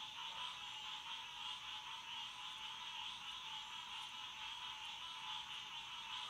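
A steady night-time chorus of calling animals, a dense unbroken high-pitched trilling that pulses slightly.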